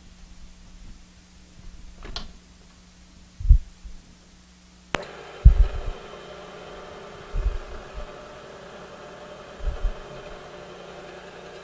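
Milling machine spindle motor switched on with a sharp click about five seconds in, then running steadily with an even whine. A few dull, low thumps come before and after it starts.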